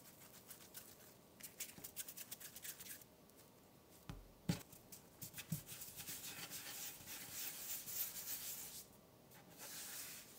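Hands rolling soft pastry dough into balls on a floured wooden board: quick runs of rubbing strokes, with a soft thump on the board about four and a half seconds in and a lighter one a second later.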